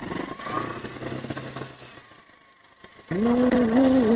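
Motorcycle engine coming closer. A faint low hum comes first, then a short lull. About three seconds in, a much louder steady engine note sets in, wavering slightly in pitch.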